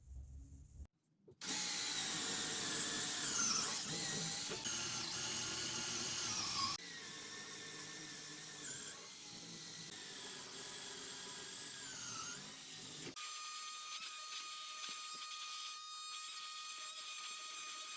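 Small power-tool motor running while cutting into the wooden door edge to hollow out the lock mortise, its pitch dipping and wavering under load. The sound changes abruptly twice, ending in a steadier whine.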